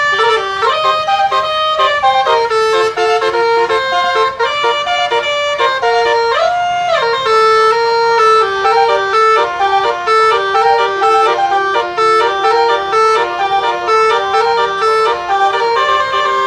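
Truck telolet horn, a multi-tone musical air horn of the basuri type, playing a tune of held notes that step up and down, with a short bend in pitch a little before halfway.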